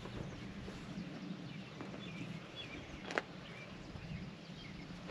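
Quiet outdoor background with faint bird chirps and a light click about three seconds in. Right at the end comes the sharp crack of an iron striking a golf ball on an approach shot.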